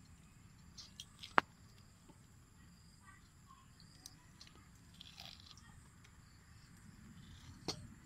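Soft wet squelching and tearing as a raw water snake's skin and entrails are pulled apart by hand, with a few sharp clicks, the loudest about a second and a half in.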